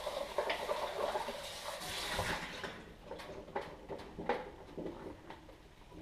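Water splashing and pouring as a plastic espresso-machine water tank is rinsed out in a stainless steel sink. This gives way about two and a half seconds in to a few light knocks and clicks of the plastic tank being handled.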